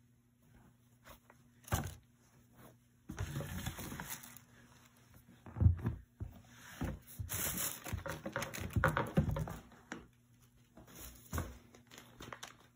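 Hands handling a pair of sneakers and their box packaging: irregular rustling and crinkling of plastic with scrapes and light knocks. The sharpest knock comes a little before halfway.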